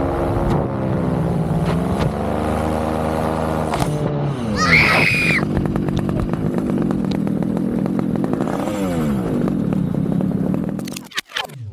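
Air Conception Tornado 280 paramotor engine running in flight, its note swinging down and up rather than holding steady. A brief high-pitched screech comes about four to five seconds in, and the engine note falls away after it, as the crankshaft breaks and the small pulley and clutch block come off. The sound breaks up and cuts off near the end.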